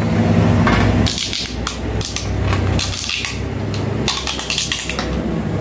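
Clear packing tape being pulled off its roll in several short ripping bursts as it is wound around an aluminium pipe, over a steady low hum.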